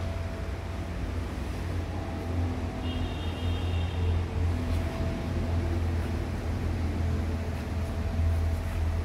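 Steady low rumble, with a brief high tone about three seconds in.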